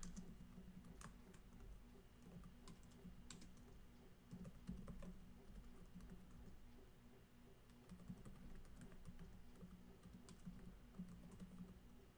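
Faint, irregular keystrokes on a computer keyboard as a terminal command is typed out.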